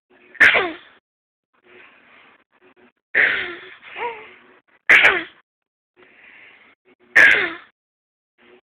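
A six-month-old baby fake coughing: four short, sudden coughs about two seconds apart, each trailing off in a voice falling in pitch. Soft breathy sounds and a small vocal sound come between the coughs.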